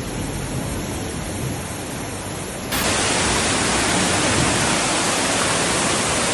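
Steady rushing noise of water from heavy rain or floodwater. About three seconds in it cuts suddenly to a louder, brighter rush.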